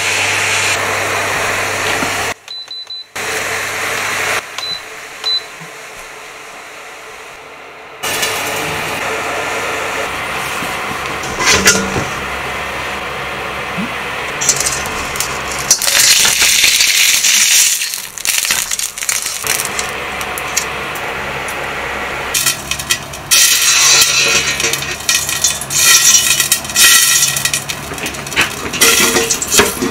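Home cooking sounds: a small saucepan of sauce boiling on an induction cooktop over a low hum. Later, metal cookware clinking and rattling in quick clicks.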